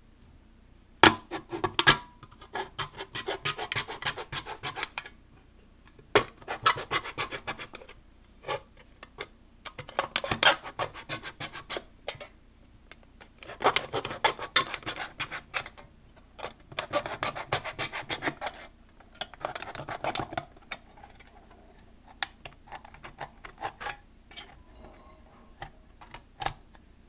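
A pointed tool scratching and scoring around the side of a thin aluminium drink can, in bursts of rapid rasping strokes with short pauses between them.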